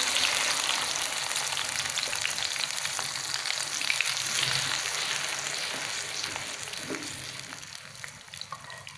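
Blended spice paste sizzling in hot oil in a pan, stirred with a wooden spatula that clicks and scrapes now and then. The sizzle holds steady, then slowly dies down over the last few seconds.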